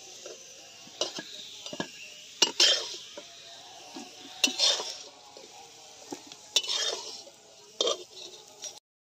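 Metal spatula scraping around a metal wok and clinking against it and a steel bowl as fried drumstick pieces are lifted out, with a light sizzle of oil underneath. The sound cuts out abruptly near the end.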